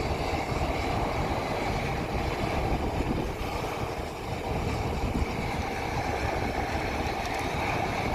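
Combine harvester running steadily in the field, with wind rumbling on the microphone.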